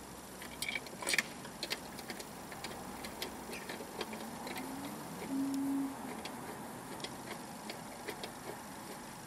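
Small clicks and taps of a hand tool on the scooter's exhaust fittings, scattered and irregular. A brief low tone rises and then holds for about half a second a little past the middle.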